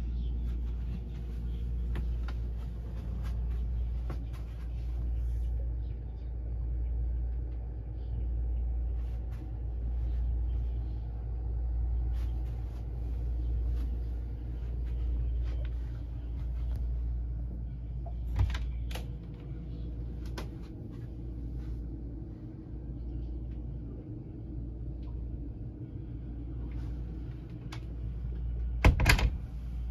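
Steady low machinery hum aboard a motor yacht, swelling and fading about every two seconds, then settling a little quieter. A few sharp clicks and knocks break in, the loudest near the end.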